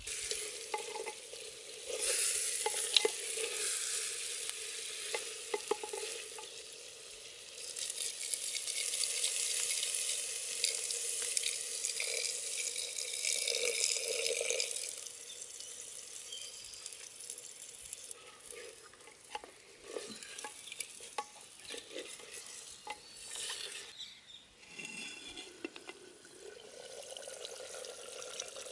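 Water poured in a steady stream into a clay cooking pot, a loud hissing splash lasting most of the first half with a brief break partway. After it stops, the soup simmers in the pot over a wood fire with scattered small pops.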